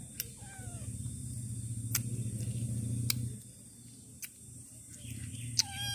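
A cat meowing twice: a faint falling meow about half a second in, and a louder falling meow just before the end. Underneath is a low steady hum with a few light clicks.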